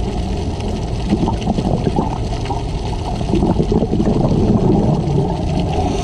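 Underwater recording of a scuba diver's breathing: exhaled bubbles from the regulator gurgling, swelling loudest around the middle, over a steady low rumble.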